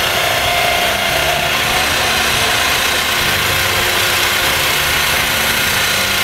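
Work barge's motor running steadily as the barge moves slowly through shallow water.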